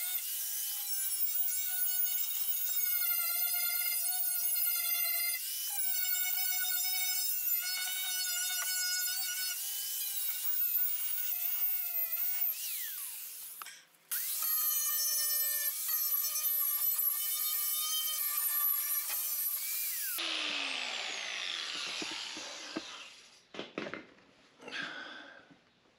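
Grinder fitted with a wire wheel running at speed on a sheet-steel fender, a high whine that wavers a little under load as it strips paint and surface rust to bare metal. It stops briefly about halfway through and starts again. About 20 s in it is switched off and the whine falls away as the wheel spins down, followed by a few light knocks.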